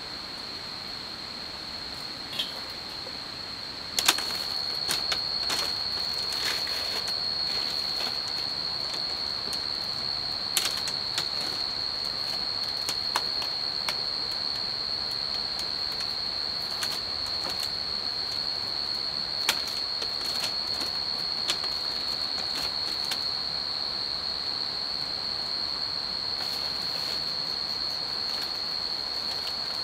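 Night insect chorus: a steady, high-pitched trill that grows louder about four seconds in, with scattered light clicks and knocks over it.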